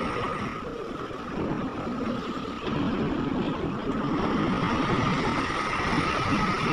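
Heavy diesel earthmoving machinery running at a mine, with a steady high whine over a rough engine rumble. It drops a little, then picks up again about two and a half seconds in.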